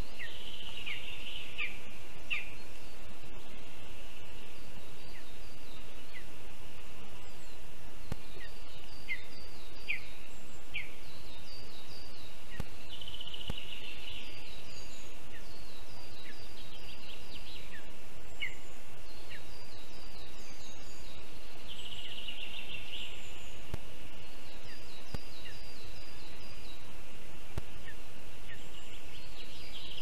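Small forest songbirds singing, each phrase a quick run of short high chirps repeated every few seconds, with scattered single call notes. Underneath is a steady hiss and a faint high whine.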